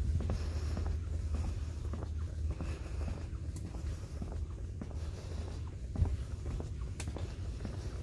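Footsteps on a wooden boardwalk, over a steady low rumble, with a few sharper knocks, the clearest about six and seven seconds in.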